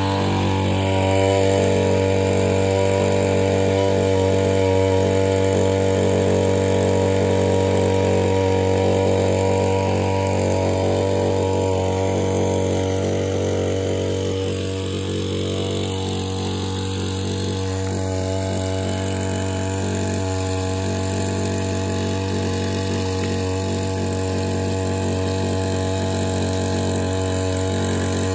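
Small engine driving a suction pump, running steadily at one constant pitch while it pumps slurry from a gobar gas (biogas) plant outlet through a hose.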